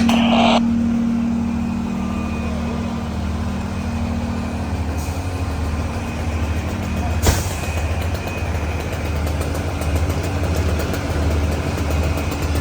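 A diesel fire apparatus engine idling with a steady low rumble. A short hiss comes at the start, and a sharp knock about seven seconds in.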